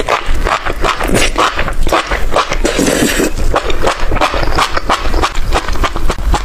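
Close-up eating sounds: a quick, irregular run of crunching, smacking and chewing.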